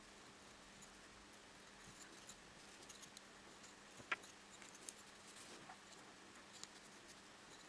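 Near silence with faint, scattered clicks and rubbing as thin wooden sticks are handled and twine is wound around them; the clearest click comes about four seconds in.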